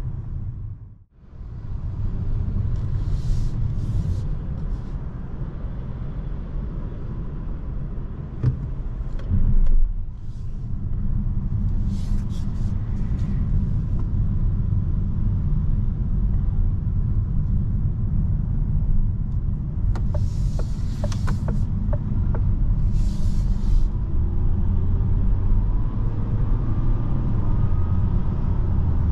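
Steady road and tyre rumble inside the cabin of a moving 2022 DS 4 E-Tense 225 plug-in hybrid. There are a few short hisses, and a faint tone rises near the end. The sound drops out briefly about a second in.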